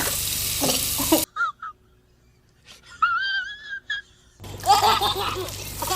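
A baby squealing and laughing, with short high yelps and one longer high squeal in a quieter stretch. Rushing, splashing water noise fills the first second and comes back near the end under the laughter.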